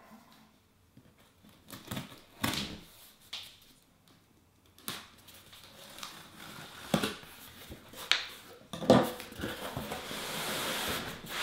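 Cardboard shipping box being handled and opened: scattered knocks, scrapes and rustles of the cardboard and its flaps, the loudest knock about nine seconds in. Over the last two seconds, a steady scraping rub of cardboard sliding against cardboard.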